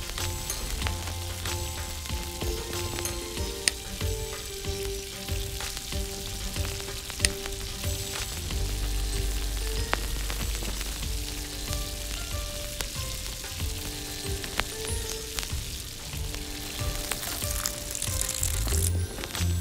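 Tomato puree and oil sizzling steadily in a tiny iron wok, with small clicks as spices are spooned in. Near the end, water poured into the hot pan makes the sizzle flare up. Soft background music plays underneath.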